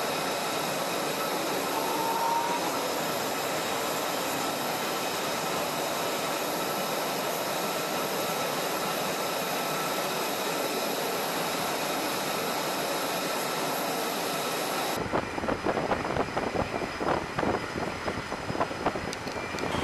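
Steady jet-engine whine and hiss on an aircraft carrier's flight deck, with several high thin tones held steady. About fifteen seconds in it cuts abruptly to gusty, fluttering wind buffeting the microphone.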